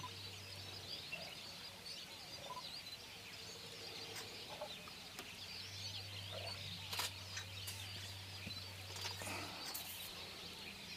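Many small birds chirping and calling, a busy high-pitched chorus, over a low hum that fades in and out, with a few brief sharp clicks.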